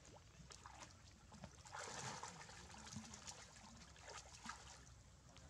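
Faint splashing and trickling of pool water stirred by swimming macaques, with one louder splash about two seconds in.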